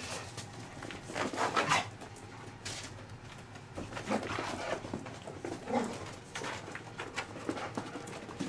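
Boxer and Pomeranian play-fighting over a small toy: dog play noises in short, irregular bursts, the busiest about a second in and again around the middle.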